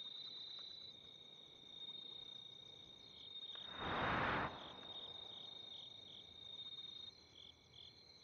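Night crickets chirping: a steady high trill with chirps in an even rhythm. About four seconds in, a brief rush of noise, louder than the insects, swells and fades.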